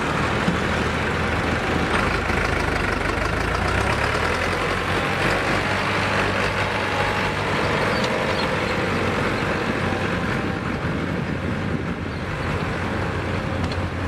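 Farmtrac 6055 diesel tractor engine running as the tractor drives past close by, a steady low drone.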